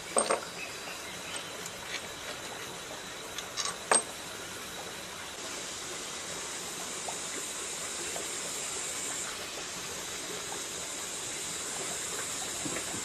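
Old, dark engine oil pouring out of a generator engine's crankcase into a metal bowl, a steady trickling hiss that grows stronger about five seconds in. A sharp metal knock about four seconds in.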